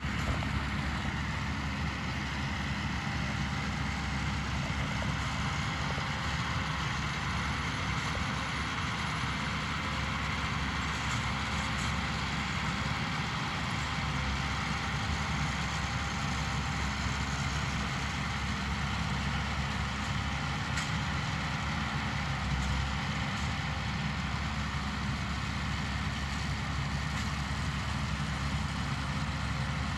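Valtra 6300 tractor engine running steadily while a Welger RP12 round baler works behind it, baling silage: a constant, unchanging engine drone with mechanical noise over it.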